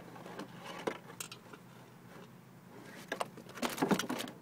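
Rustling and scattered clicks from a handheld phone being moved and rubbed, with a denser run of clicks near the end, over a faint steady hum.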